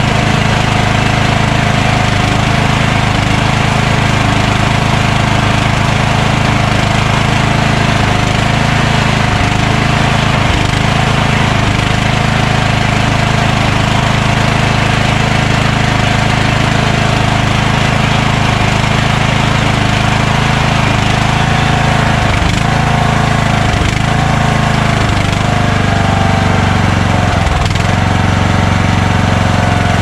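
Craftsman lawn tractor's engine running steadily at a constant speed, with a few brief dips in speed in the latter part.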